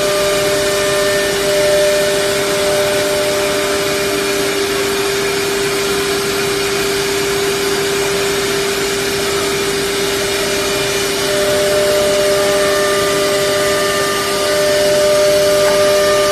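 Holztek HT-R4F four-head CNC nesting router running: a steady high spindle whine over a loud, even rushing noise. A second, higher tone fades out a few seconds in and comes back near the end.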